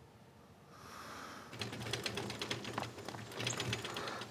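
A soft breath. Then, from about a second and a half in, a rapid, irregular run of crunching clicks from a hand-pulled rickshaw's wheels and the puller's footsteps as it draws up over the ground.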